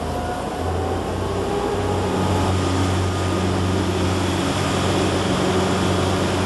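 Vikenes 1030 motorboat's engine opened up under throttle, a low drone that grows louder over the first couple of seconds and then holds steady as the boat speeds up, with a steady rush of water along the hull and wake.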